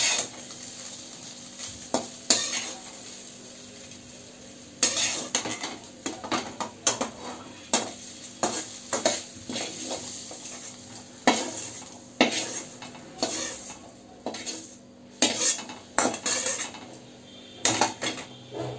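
Metal spatula repeatedly scraping and knocking against a kadhai and a steel plate as fried soya chunks are lifted out, with hot oil sizzling faintly underneath.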